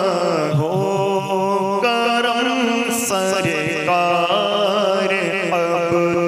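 A man singing a naat, an Urdu devotional song, in long held notes that bend and turn in pitch.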